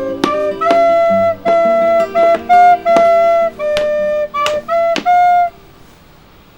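Flute playing a melody of held and short notes over plucked guitar accompaniment; the music stops about five and a half seconds in.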